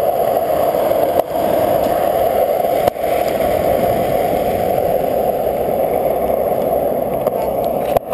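Skateboard wheels rolling steadily over rough asphalt, dipping briefly twice in the first three seconds.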